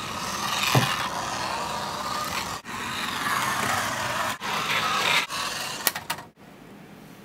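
A remote-control toy car driving across carpet: a steady motor noise that breaks off abruptly several times. A quick run of sharp clicks comes about six seconds in, and the noise stops soon after.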